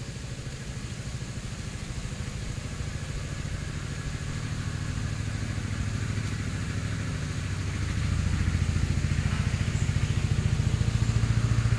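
A small engine running steadily with a low, fast, even pulse, growing louder about two-thirds of the way through.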